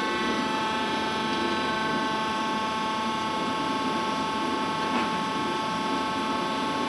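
Worm screen centrifuge running at speed on its test run, with freshly fitted main drive and gearbox bearings. It gives a steady whine of several held tones over a constant rumble, with one small click about five seconds in.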